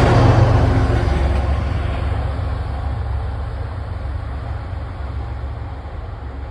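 MBTA commuter rail train rolling past, a steady heavy rumble that fades slowly as it moves away.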